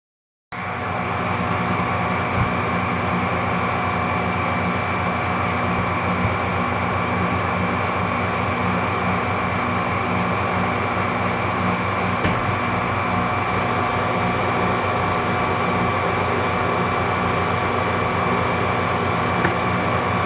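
Metal lathe running steadily under power during a thread-cutting pass on a cast-iron plate: an even mechanical whine with several steady tones over gear and motor noise, and a few light ticks.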